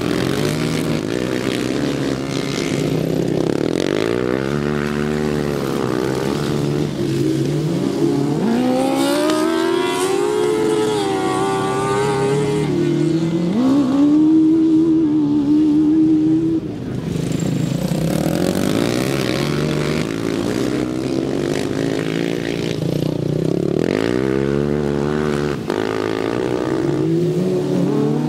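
Several racing lawnmower engines revving up and easing off as the mowers pass one after another, their pitch rising and falling. Loudest just past halfway, as one mower goes by close.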